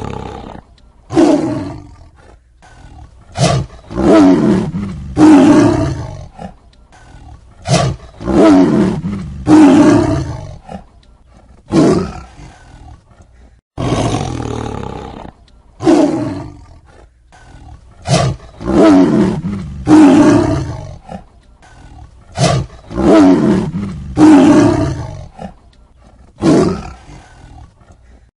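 Tiger roaring and snarling again and again: loud roars a second or two long, broken by short sharp snarls, with brief pauses between calls.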